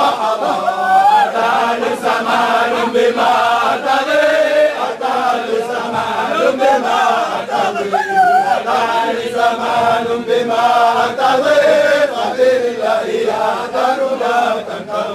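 A group of men chanting a Sufi dhikr of the Shadhili order together, many voices repeating the chant and rising and falling in pitch, then trailing off near the end.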